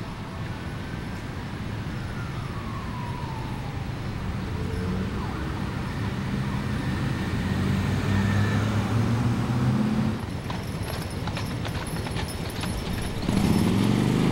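Street traffic: motor vehicles running past with steady engine tones, and one vehicle passing close and loud near the end.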